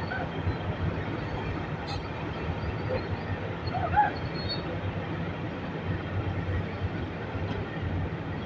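Heavy diesel engines of an excavator and a dump truck running with a steady low rumble.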